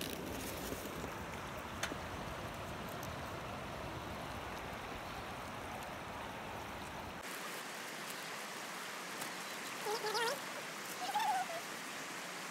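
Steady rushing of a river flowing past, together with the whir of a small camp stove's battery-powered fan. A little before the end come two short, high, wavering animal calls, the first rising in quick steps, the second a brief rise and fall.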